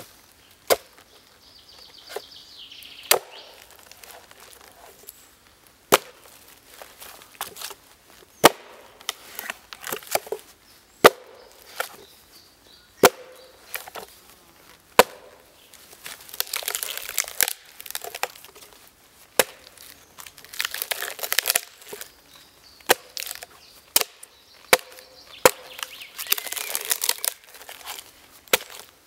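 An axe strikes again and again into a log being split lengthwise, with sharp blows every second or two. Several longer stretches of crackling and tearing come from the wood fibres giving way as the split opens and the halves pull apart.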